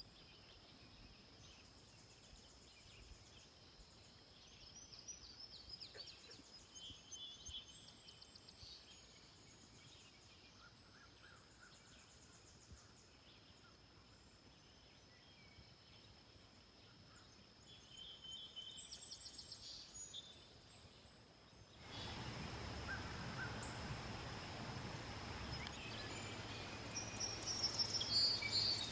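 Outdoor spring ambience: several birds calling and singing over a steady high-pitched note. About three quarters of the way through it cuts to a louder background hiss, with a burst of birdsong near the end.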